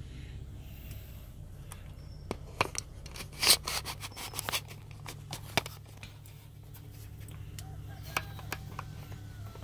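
Handling noise from a camera being adjusted in its holder: a run of clicks, knocks and rubbing, loudest a few seconds in, with a few more clicks near the end. Underneath is the steady low hum of the car's cabin.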